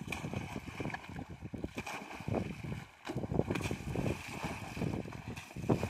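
Clods of cow manure splashing and thudding into pond water as they are pushed off a trailer load, with wind buffeting the microphone.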